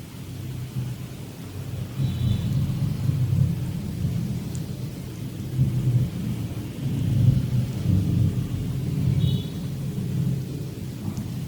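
Hands rubbing and pressing on skin during a deep-tissue neck massage, close to the microphone: an uneven low rumble that swells and eases with the strokes, with two brief faint squeaks, about two seconds in and near the end.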